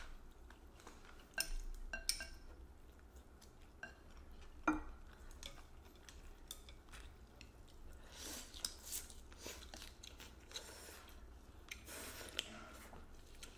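Chopsticks and porcelain spoons clinking against ceramic bowls in scattered sharp clicks, the loudest about five seconds in, with chewing and noodles being slurped from a bowl of soup.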